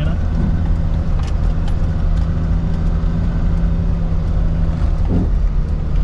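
Motor vehicle driving, its engine and running noise a steady low drone with a held hum and no rise or fall.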